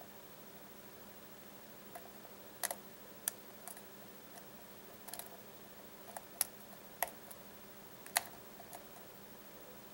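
Steel lock pick and tension wrench working the pins of a brass Baldwin pin-tumbler lock cylinder: light, sharp clicks, scattered irregularly, about ten in all.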